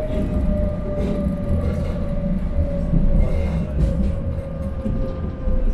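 Electric tram running on rails, heard from on board: a low rumble of wheels on track under a steady motor whine that slowly falls in pitch as the tram slows.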